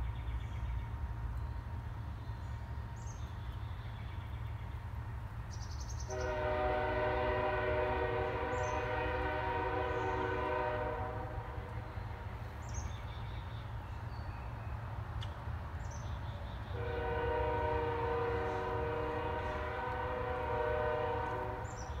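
A multi-tone horn sounds two long blasts of about five seconds each, the first about six seconds in and the second near the end, over a steady low rumble. Short high bird chirps come here and there.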